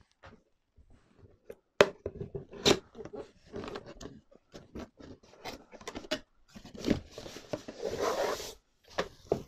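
A cardboard box being opened by hand: flaps and lid scraping and tapping, then the tissue paper wrapping inside rustling for about two seconds near the end.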